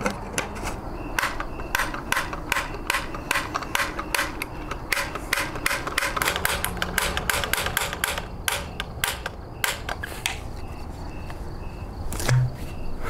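Sharp, irregular clicking, about three to four clicks a second, from a spark igniter pressed over and over on a combustion tennis-ball cannon. No shot goes off: the cannon is failing to light.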